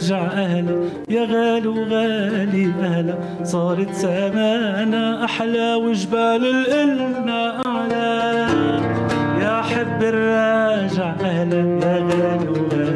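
A man singing a classical Lebanese song in a wavering, ornamented vocal line, accompanied by a plucked oud. About eight and a half seconds in, the accompaniment becomes fuller and lower.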